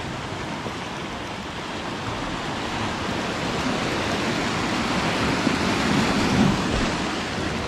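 Sea swell washing onto the shore: a steady rushing wash that swells louder about five to six seconds in.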